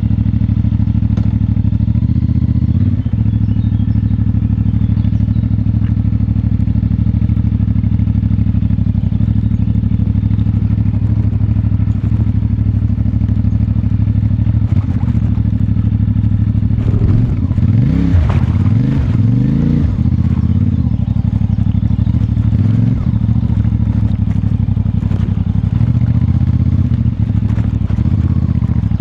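CFMoto 450MT's parallel-twin engine through its stock exhaust, running at a steady engine speed, with the pitch rising and falling briefly about two-thirds of the way through.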